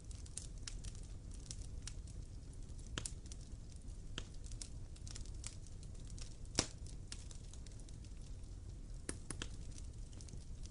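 Wood fire crackling, with irregular sharp pops and one louder snap about six and a half seconds in, over a low steady rumble.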